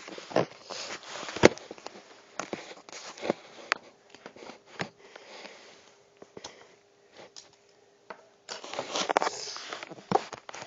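Lego pieces being handled: scattered sharp plastic clicks and clacks, with a stretch of denser rustling about two seconds before the end.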